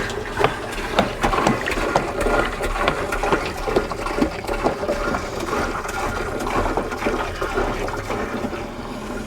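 Liquid chemical poured steadily from a jug into a sprayer tank, splashing and gurgling with many irregular little glugs.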